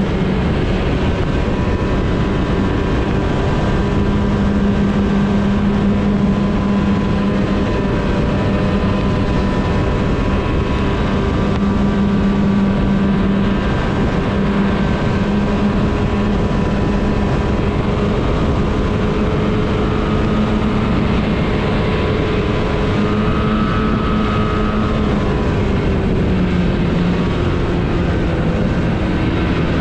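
Snowmobile engine running steadily at trail speed, its drone drifting slightly up and down in pitch, over a constant rushing noise.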